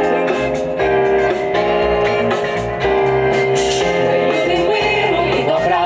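A jazz band with a small group of singers performing a simple, catchy chorus, with held sung notes over a steady beat.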